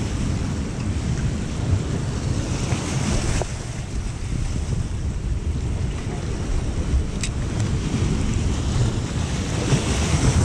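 Surf breaking and washing over jetty rocks, with steady wind buffeting the microphone as a low rumble. A single sharp click about seven seconds in.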